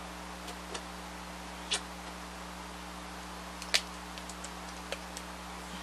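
Light clicks and taps as a small plastic squeeze bottle of red acrylic paint is handled over a glass jar, the sharpest a little past the middle, over a steady low electrical hum.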